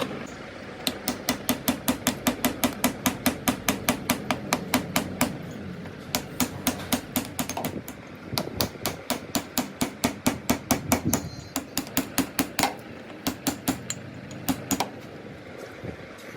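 Hammer blows on a metal part, fast and even at about four to five a second, in several runs broken by short pauses.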